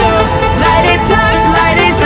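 Loud electronic pop song with a heavy bass beat and a wavering vocal or lead line.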